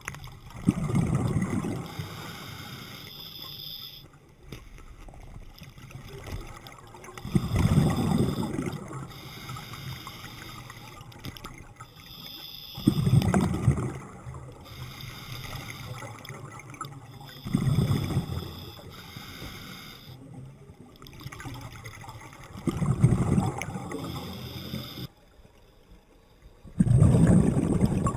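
Scuba diver breathing through a regulator underwater: a loud rush of exhaled bubbles about every five seconds, six times, with a quieter hiss between breaths.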